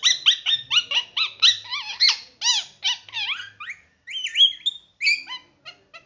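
Young rose-ringed parakeet calling in a rapid string of short, high-pitched syllables, pausing briefly about four seconds in and then going on. This is the chatter of a baby parrot beginning to learn to talk.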